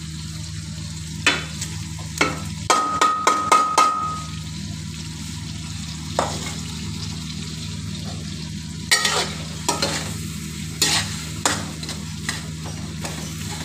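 Tomato and spice masala frying in an aluminium karahi, with the spoon scraping and knocking against the pan as softened minced meat is stirred in. There are clusters of sharp knocks about three seconds in and again about nine seconds in, then scattered single knocks.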